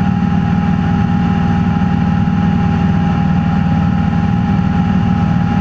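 Cessna 172's piston engine and propeller running steadily in cruise flight, heard from inside the cockpit as a constant, even drone.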